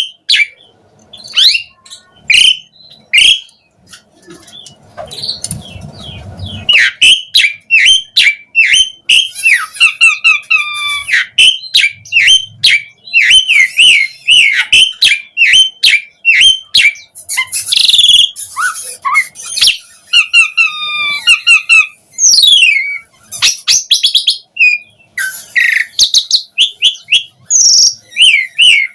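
Asian pied starling (jalak suren) singing a varied song of whistles, chirps and quick sweeping notes. A few scattered notes come first, then from about seven seconds in a dense, almost unbroken run of song.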